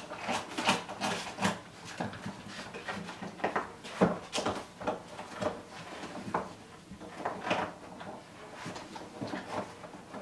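Puppies scrambling over an upturned plastic laundry basket: irregular hollow knocks and scrapes as the basket shifts and bumps on the floor, with their claws scrabbling on the plastic. The sharpest knock comes about four seconds in.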